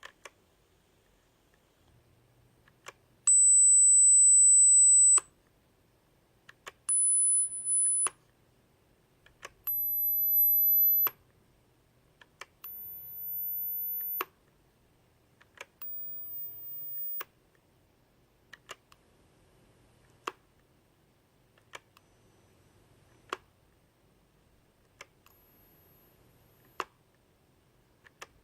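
Very high-pitched pure test tones from hearing test software: five steady tones, each one to two seconds long and each higher than the one before, the first the loudest and the later ones quieter. Sharp single clicks sound between the tones, and one more faint high tone comes near the end.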